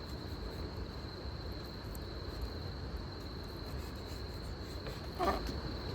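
Insects singing steadily at a single high pitch over a low outdoor rumble, with one brief short sound about five seconds in.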